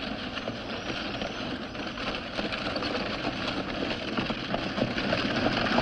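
Horse-drawn carriage approaching: hooves clopping and wheels rolling over the street, growing louder as it nears.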